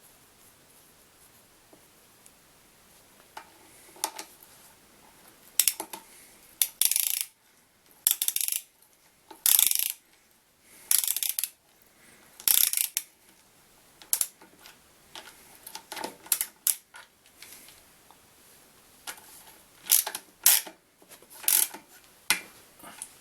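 Ratchet wrench clicking in a dozen or so short runs of strokes, with pauses between, as the alternator's upper mounting bolt is tightened.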